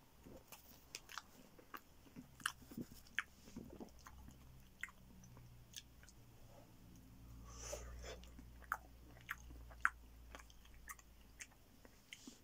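A person biting and chewing pepperoni pizza with a crunchy crust close to the microphone: irregular small crunches and mouth clicks.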